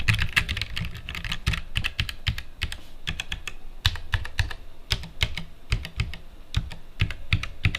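Fast, irregular typing on a Roccat Vulcan TKL mechanical gaming keyboard: a steady clatter of key clicks several times a second from its low-profile keycaps and switches.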